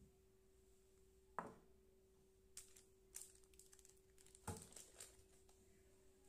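Quiet handling sounds of a baking tin on a wooden cutting board: two soft knocks about three seconds apart as the tin is set down and the brownie turned out onto the board, with faint crinkling of baking paper between them.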